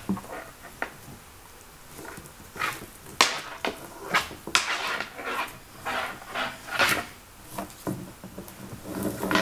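Rope being worked loose from a double figure-eight knot on a tabletop: an irregular run of rustles, swishes and sharp knocks as the rope is pulled through and dropped on the table.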